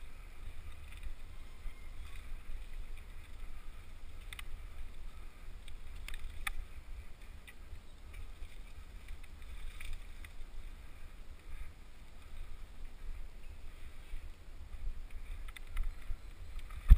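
Rumble of wind and trail vibration on a helmet-mounted camera's microphone as a bike rolls down a dirt trail. A few sharp clicks from the bike or trail come about four seconds and six and a half seconds in.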